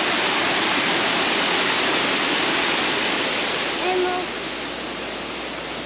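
Steady rush of a small river running over rocks, a little quieter after about four seconds.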